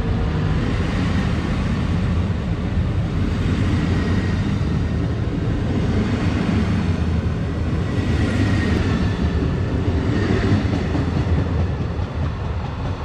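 Double-deck passenger coaches of an electric-hauled train rolling past at close range: a steady heavy rumble of steel wheels on the rails. It fades near the end as the train draws away.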